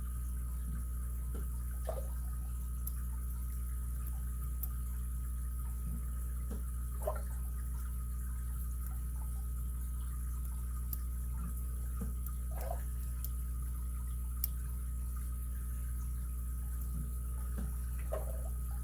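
Faint, scattered ticks and scrapes of a lock pick probing the pin stacks of an ABUS 83CS/55 six-pin padlock under light tension, over a steady low hum.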